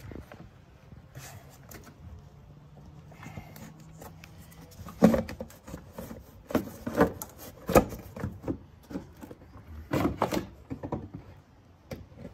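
Plastic air box and intake duct being handled and worked loose by hand: a faint low hum for the first few seconds, then irregular knocks, clicks and rattles from about five seconds in.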